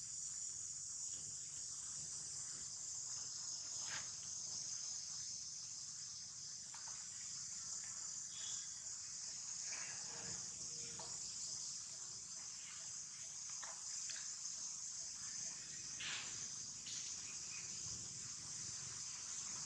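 Steady high-pitched insect chorus droning without a break, with a few faint short sounds here and there.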